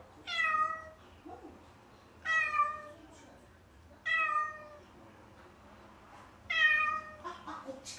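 A cat meowing four times, one long call about every two seconds, calling for its owners from behind the upstairs fence.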